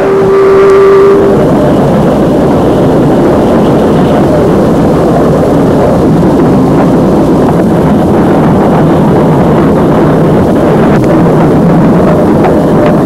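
Locomotive heard from on board while running, a steady loud rumbling noise throughout. At the very start it sounds one steady note for about a second and a half.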